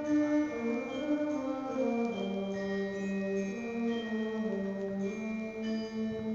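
Senior high school concert band playing held wind and brass chords that shift in pitch every second or so, with short high notes over them.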